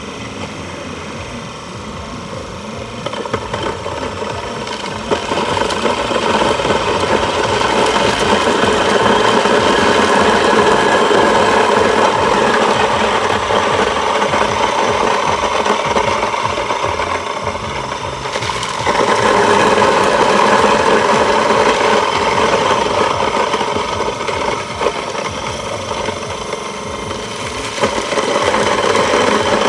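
Belt-driven electric grain mill running as it grinds dried corn kernels into meal for duckling feed, a steady mechanical grinding. It gets louder about five seconds in, drops briefly about eighteen seconds in, and steps up again near the end.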